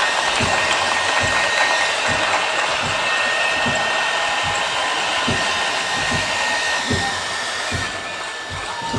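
Dense, steady applause from a crowd, many hands clapping at once.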